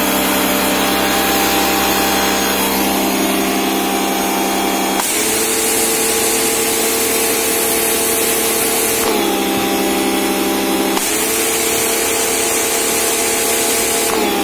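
Electric pressure washer's motor and pump running while the wand sprays water onto concrete. The machine's steady hum changes abruptly several times, about five and nine seconds in and again near the end, and a high hiss of spray comes and goes with those changes.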